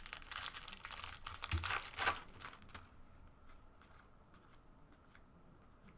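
A trading-card pack wrapper being torn open and crinkled for about three seconds, loudest about two seconds in, followed by faint clicks of cards being handled.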